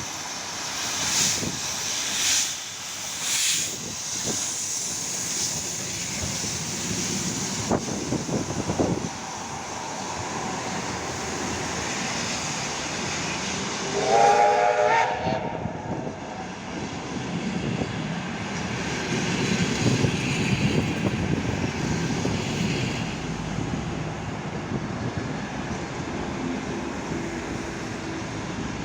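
P36 steam locomotive hauling a passenger train past: several hissing bursts of steam in the first few seconds, then a steady rumble of the train, with one short whistle blast about halfway through.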